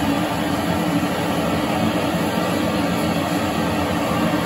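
Steady roar of gas torch flames heating a model locomotive boiler for silver soldering: a large 1¼-inch LPG burner together with a hand-held oxy-LPG torch.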